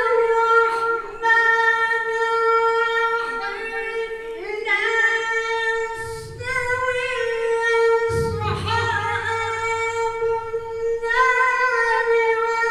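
A man reciting the Quran in a melodic, sung style into a microphone: long held high notes with ornamented turns, broken by a few short pauses for breath.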